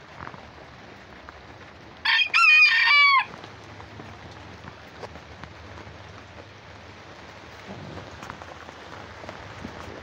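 A rooster crowing once, about two seconds in: a short first note, then a longer held note that falls in pitch at the end. Steady rain hiss runs underneath.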